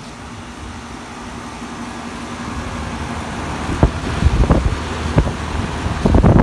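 Outdoor air-conditioner condensing units running, a steady hum that grows louder as the microphone nears them. Toward the end, air gusts buffet the microphone in low thumps.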